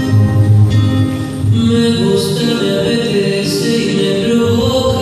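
Slow rumba song playing for the dancers, a singer's voice held over the accompaniment.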